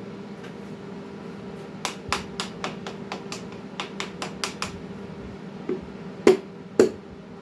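Light, quick taps, about three a second, then two harder knocks near the end: a piston being tapped down through a ring compressor into the cylinder bore of a Ford 351 Windsor stroker engine block.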